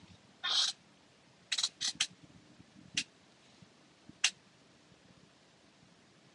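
Short, sharp rustles of a hand stroking a cat's fur: a longer one about half a second in, a quick run of three, then two single strokes, before it goes quiet.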